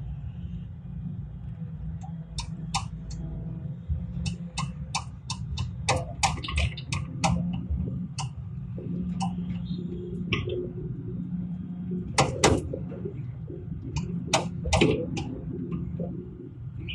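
Low, steady engine rumble, with scattered sharp clicks and knocks over it. The knocks are busiest in the middle, and the loudest come about twelve seconds in.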